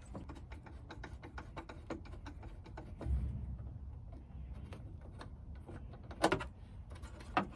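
Scattered small clicks and knocks of plastic and metal TV parts being handled during a teardown. There is a low thump about three seconds in and a sharper clatter a little after six seconds.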